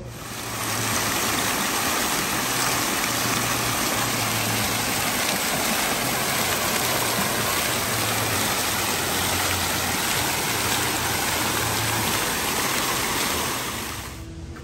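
Fountain with many jets splashing into its basin: a steady rush of falling water that swells in over the first second and fades away near the end.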